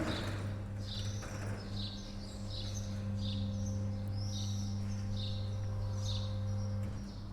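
Small birds chirping, short high calls repeating about once or twice a second, over a steady low hum that stops near the end.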